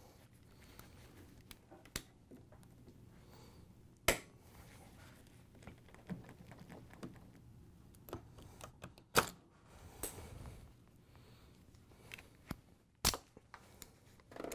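A handful of sharp clicks and snaps, the loudest about four, nine and thirteen seconds in, as a flathead screwdriver and locking pliers work a pressed-in refrigerator door hinge bearing loose to pull it out.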